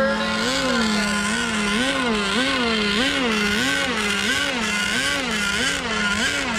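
Radio-controlled model racing boat engines running at high revs: one whining engine note wavers up and down in pitch about twice a second, over a steadier, lower engine drone.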